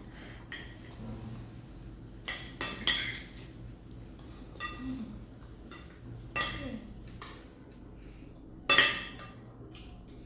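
Cutlery clinking and scraping against plates as the children eat, a string of irregular metallic clinks every second or so, with louder ones about two and nine seconds in.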